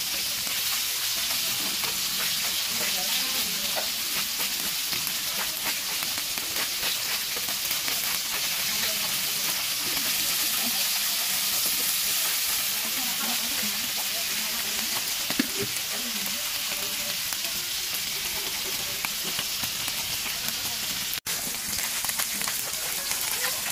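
Fish fillets sizzling in hot oil in an aluminium wok, a steady frying hiss, with metal tongs touching the pan as the pieces are turned. The sound cuts out for an instant near the end.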